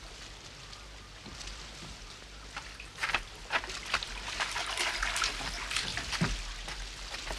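Footsteps crunching over beach pebbles and splashing into shallow seawater, a dense run of quick strokes starting about three seconds in, over a soft wash of small waves.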